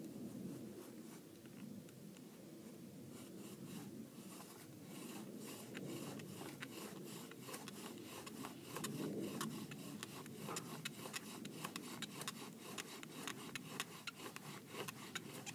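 Bow drill being worked for a friction fire: a wooden spindle grinding into a cottonwood hearth board as the cord-strung bow is sawed back and forth. It makes a steady rhythmic rubbing, with squeaky clicks joining in about three seconds in and growing denser.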